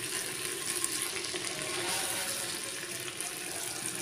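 Sliced onions frying in hot oil in a clay pot, stirred with a wire skimmer: a steady sizzling hiss.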